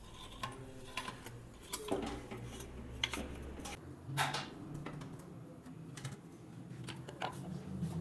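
Irregular metal clinks and knocks as a Honda CG125's spoked front wheel is handled and fitted between the front forks, with the sharpest knock about four seconds in.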